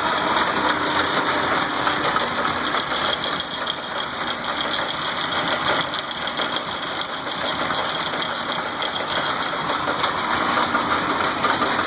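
Davis belt-drive lathe running steadily, its drive giving a continuous mechanical rattle and clatter.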